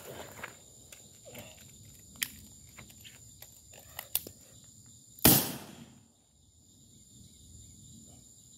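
A handful of light clicks and knocks as the Smith & Wesson Model 66 .357 Magnum revolver is handled and reloaded. About five seconds in, a single shot goes off as a pop instead of the normal loud report. This is a squib load, leaving the bullet lodged in the barrel from too little powder, which the shooter puts down to ammunition that got wet.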